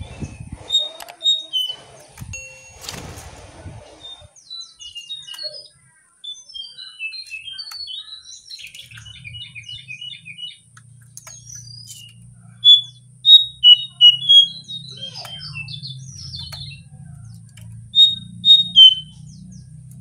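Caged jongkangan songbird calling: a run of short chirps and clear whistled notes, loudest in two bursts of quick ringing notes, one in the middle and one near the end. A faint low hum runs underneath from about halfway.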